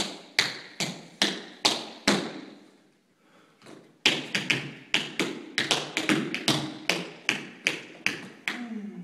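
Tap shoes striking a wooden floor in sharp, evenly spaced taps, about two to three a second. The tapping pauses for about a second and a half, then resumes as a steady run of taps.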